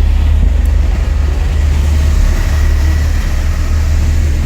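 Car audio subwoofers playing loud, deep bass, steady throughout, with almost nothing above the low bass range.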